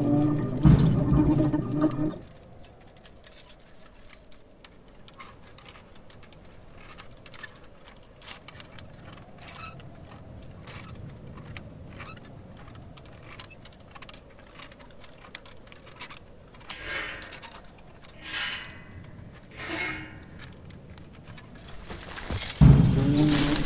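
Film soundtrack: dark music that drops out after about two seconds, leaving a quiet stretch of faint scattered clicks and ticks with three short breathy rushes about a second and a half apart, before the music swells back in near the end.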